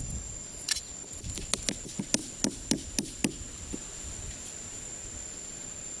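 Sharp wooden knocks, about eight in quick succession, as a wooden stake is pounded into the ground, then they stop. A steady high insect drone, typical of crickets, runs underneath.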